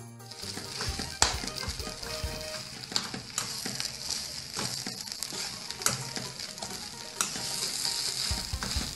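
A metal spatula stirs and scrapes a dry chicken-and-potato cutlet mixture in a stainless steel pan on low flame while it fries with a steady sizzle. Sharp scrapes against the pan come at irregular intervals as the ground spices are mixed through.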